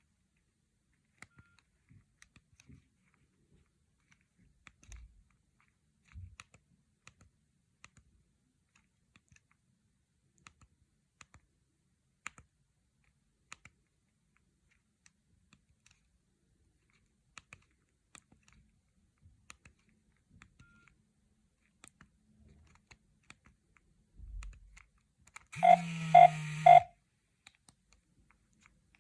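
Soft, scattered clicks of a Nokia 6610 mobile phone's keypad buttons being pressed, about one a second, then near the end a brief burst of electronic tones from the phone's speaker, lasting just over a second.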